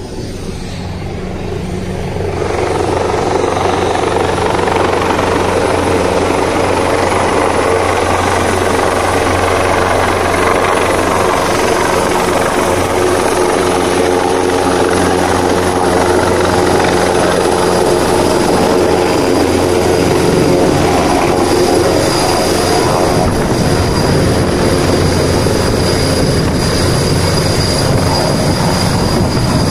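Rotor and turbine noise of a large military helicopter coming in low to land. It grows louder over the first two or three seconds and then stays loud and steady, with a high steady whine joining about halfway through.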